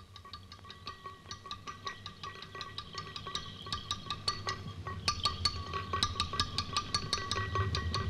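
Quick, glassy clinks and ticks in an irregular patter, growing louder and denser, over a faint steady high tone: a percussive film soundtrack.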